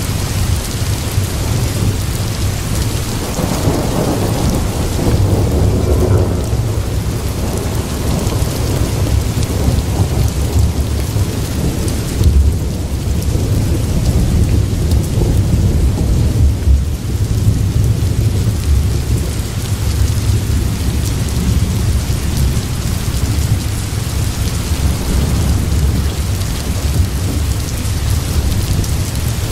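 Steady rain with a low rumble of thunder.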